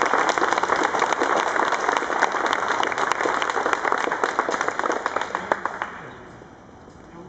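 Audience applauding, a dense patter of clapping that dies away about six seconds in.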